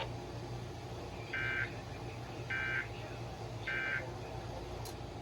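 EAS end-of-message (EOM) tone from a NOAA Weather Radio broadcast: three short bursts of buzzing two-tone digital data, about a second apart, over steady radio hiss and hum. It marks the end of the tornado warning message.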